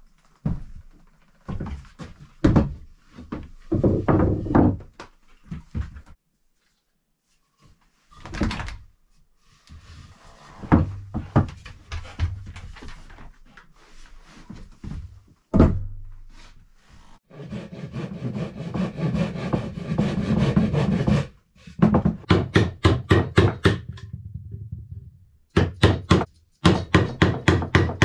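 Footsteps and knocks on a plank floor as turned wooden table legs are carried in and set down. A few seconds of steady rubbing noise follow, then a hammer strikes a chisel into one of the wooden legs in quick, repeated blows.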